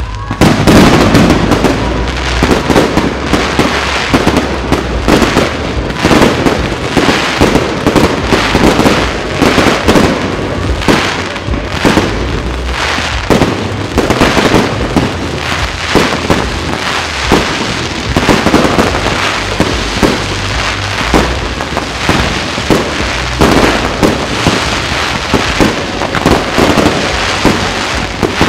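Fireworks display: a dense, continuous barrage of overlapping shell bursts, bangs and crackle, with hardly a gap between reports.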